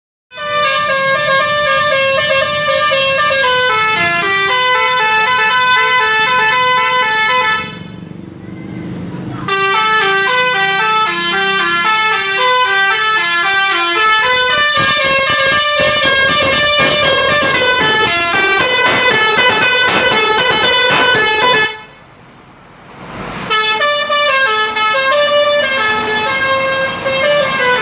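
Telolet musical multi-tone air horn of a Harapan Jaya Super Double Decker bus, loudly playing stepped multi-note tunes. It plays in three long runs, broken twice by brief pauses of a second or two.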